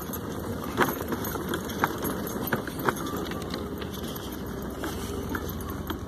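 Mobility scooter rolling along a paved promenade: steady running noise with a few sharp clicks and rattles scattered through it.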